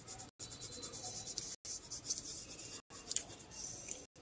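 Coloured pencil scratching across paper in quick, repeated shading strokes, broken by short dead gaps about once a second.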